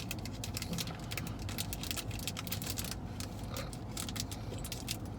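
Packaging crinkling and rustling as it is handled, a dense run of small crackles, over a steady low hum.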